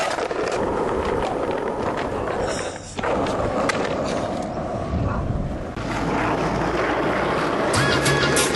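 Skateboard wheels rolling on pavement, with sharp clacks of the board hitting the ground as skaters try tricks and bail. Music with a steady beat comes in near the end.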